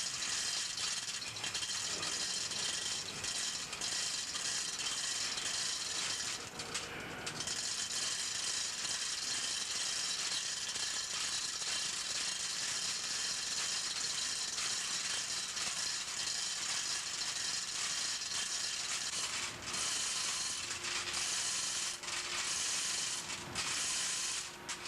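A machine or power tool rattling steadily during overhaul work on a large two-stroke marine engine, with brief stops about seven seconds in and several more near the end.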